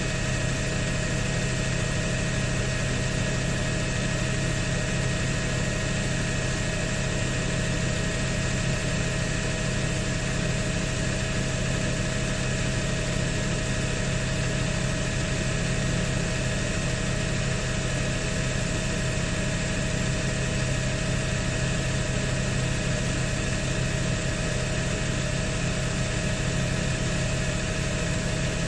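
Steady, unchanging drone of a helicopter's engine and rotor, heard from aboard the aircraft: a strong low hum with a few steady whining tones above it.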